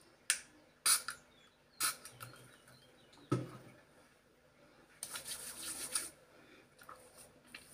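Sun cream being handled and applied: a few sharp plastic clicks from the tube, a bump, then about a second of soft rubbing as the cream is spread on the skin.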